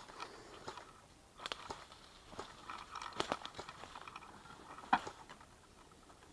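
Irregular crunching and cracking of leaves and twigs on a forest floor underfoot, with one sharper crack about five seconds in.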